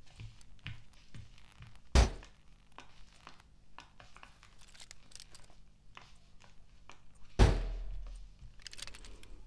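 Footsteps and light clicks, broken by two loud thuds about five seconds apart; the second thud has a low rumbling tail lasting about a second.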